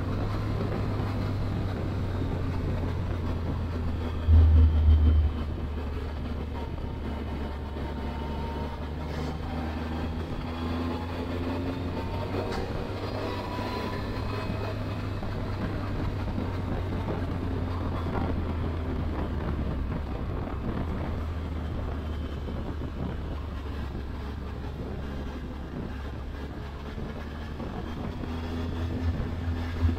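Triumph Tiger 1200 Explorer's three-cylinder engine and wind rumble heard while riding, a steady low drone. A brief, much louder low rumble comes about four seconds in.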